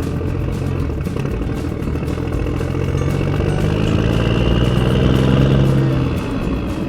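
Huina RC excavator working: a steady engine-like drone with a thin high whine above it. Both rise a little in pitch and loudness about midway, then ease off near the end.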